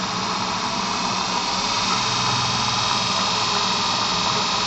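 Induction motor with Duyunov 'Slavyanka' combined windings running on an adjustable-frequency supply, a steady whirring hum that grows slightly louder as the supply frequency is raised and the motor gathers speed. A low tone joins the hum about two seconds in.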